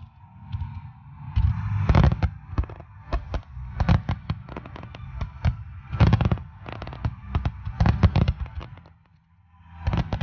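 Aerial fireworks display: a rapid, overlapping series of sharp bangs and crackles over deep booms, with several dense clusters. There is a brief lull about nine seconds in before the bursts start again.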